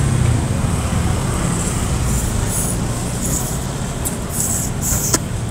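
Steady low rumble of street traffic. From about two seconds in come a few short airy hisses as a small sea snail's shell is sucked at to draw out the meat, and there is a sharp click near the end.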